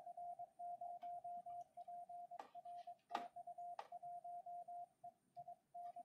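Morse code (CW) tone of about 700 Hz from a Yaesu FT-991A transceiver, keyed on and off in dots and dashes through a Field Day contact exchange: call sign, TU, class 1E and section. Three sharp clicks break in around the middle, the second the loudest.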